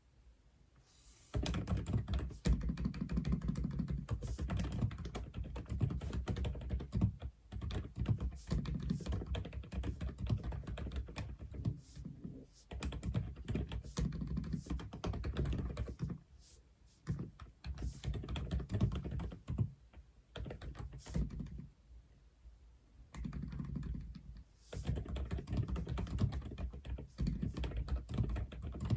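Typing on an Aula F87 mechanical keyboard: runs of quick keystrokes beginning about a second in, broken by a few short pauses.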